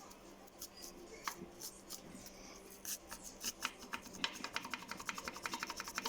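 Pistons of a Kia G4KD 2.0 engine rocked by hand in their bores, giving light metallic clicks: a few scattered ones, then a quick run from about halfway, near ten a second by the end. This is the piston knock of a worn engine with scored cylinder liners.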